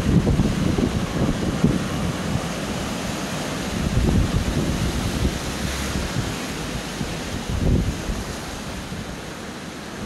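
Sea surf breaking and washing over rocks, with wind buffeting the phone's microphone in low rumbling gusts. The surf is a little louder at first and eases slightly toward the end.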